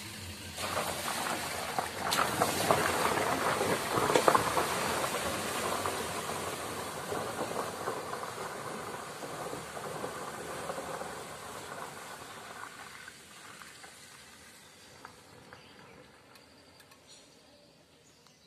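Water splashing and rushing on a flooded road as a vehicle drives through it. The wash rises sharply at the start, is loudest a few seconds in, then slowly fades away.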